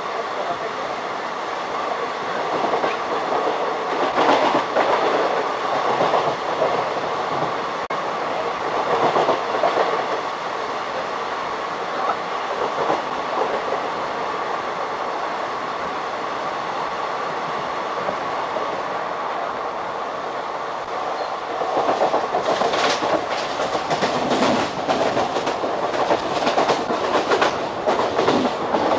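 Passenger train running at speed, heard from an open coach doorway: a steady rumble and rush of air with a constant whine, and the wheels clattering over rail joints in bursts, thickest in a long run of clacks near the end.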